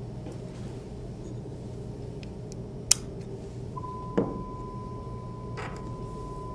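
A sharp click, then about a second later an acoustic sound-level calibrator starts its steady pure 1,000 Hz reference tone, used for field-calibrating a noise dosimeter. A knock from handling the calibrator comes just after the tone starts, over a low steady hum.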